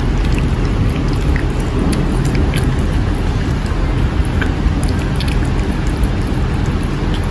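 A steady low rumbling noise, with faint scattered clicks and smacks of a Sphynx cat eating wet food from a bowl.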